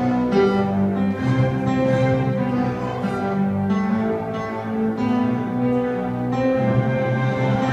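Ensemble of digital pianos and electronic keyboards playing a slow piece together, held chords over low notes that change about once a second.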